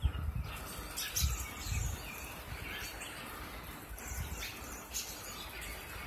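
A flock of American robins calling, with many short high chirps overlapping throughout. A low rumble on the microphone is heard in the first two seconds.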